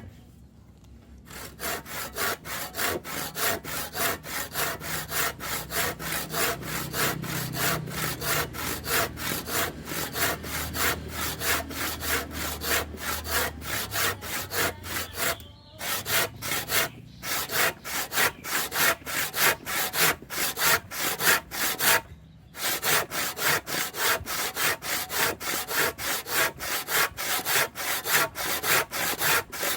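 Kapusi 18-inch hand saw cutting through hardwood in quick, even back-and-forth strokes, about three a second, rasping through the wood. The sawing pauses briefly twice.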